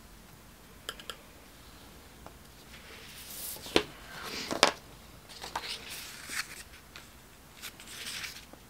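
Paper craft handling on a cutting mat: a few small clicks as card stock is scored along a steel ruler with a creasing stylus, then card and paper rustling and scraping as they are picked up and laid down, with two sharp taps in the middle.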